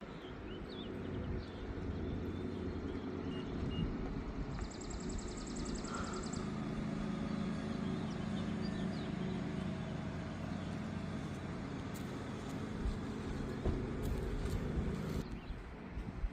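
A motor vehicle's engine running steadily, cutting off about fifteen seconds in, with small birds chirping and a brief rapid trill about five seconds in.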